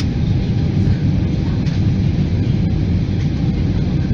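Steady low roar of an airliner's jet engines and rushing airflow, heard from inside the passenger cabin on the approach to landing.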